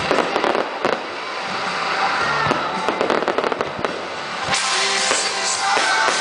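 Fireworks crackling and popping in rapid clusters, most densely in the first second and again about halfway through, over music playing at the same time.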